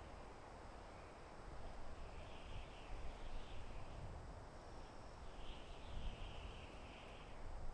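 Soft wind in a forest: a steady rushing with a low rumble underneath. Faint chirping rises above it twice, about two seconds in and again past the middle.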